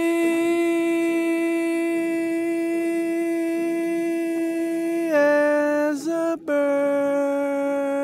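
A lone voice singing long held notes without words and without accompaniment: one steady note for about five seconds, a short lower note, a brief break, then a second long, slightly lower note.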